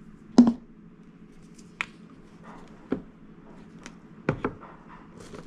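Food packages and containers being handled and set down while a refrigerator is sorted: a handful of separate knocks and clicks, the loudest about half a second in and a quick pair near the end, over a low steady hum.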